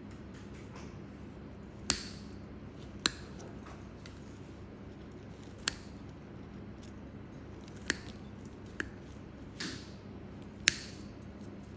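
Metal cutting pliers snipping and cracking off pieces of a thick, crumbly nail: about seven sharp snaps at irregular intervals over a faint steady hum.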